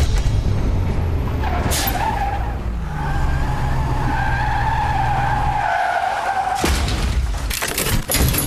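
Cartoon vehicle sound effects: a low engine rumble with a tire screech held for about three seconds, then a quick series of sharp hits near the end.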